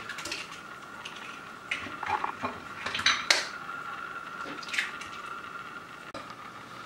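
Eggs being tapped and cracked against the rim of a stainless-steel stand-mixer bowl, about half a dozen sharp clicks spread over several seconds, the loudest a little after the middle.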